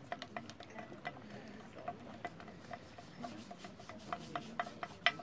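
Small hammers tapping and chipping the baked loam mould away from a newly cast bell during unmoulding: a run of sharp, irregular knocks, several a second, the loudest near the end.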